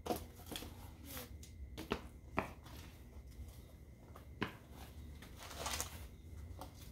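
Wonderfold W4 Elite stroller wagon's folding frame being handled and unfolded. Several sharp clicks and knocks come at irregular intervals as its joints and parts shift.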